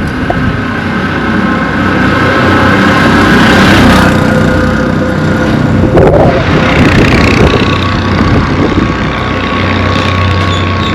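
A motor vehicle's engine running close by on a dirt road, its sound swelling and easing as it moves, with a sharp click about six seconds in.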